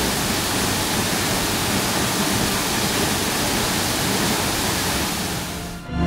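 Giessbach Falls waterfall heard close by, a loud, steady rush of falling water. It fades out just before the end as music begins.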